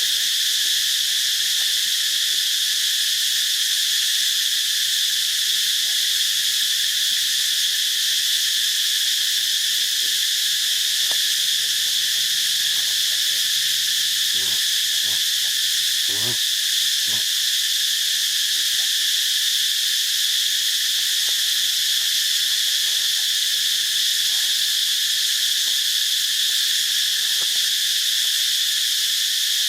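Loud, steady chorus of insects, a constant high-pitched shrill that never lets up. A few faint knocks come about halfway through.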